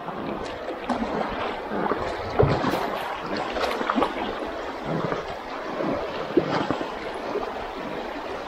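River water splashing and gurgling around a small boat on the move, with irregular sharper splashes.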